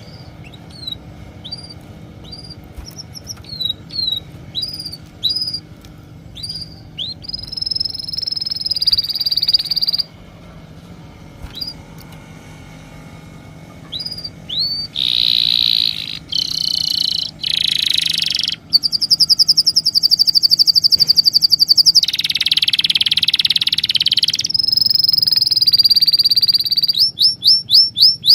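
Birds chirping and singing, high-pitched. Short separate chirps come first, then louder longer phrases in the second half: a held note, a fast trill, a buzzy stretch, and a quick run of falling notes near the end.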